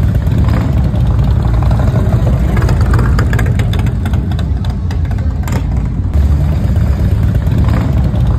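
Motorcycle engines running, a loud steady low rumble.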